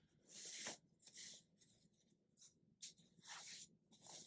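Faint rustling of paper and plastic packaging being handled and opened, in about five short swishes.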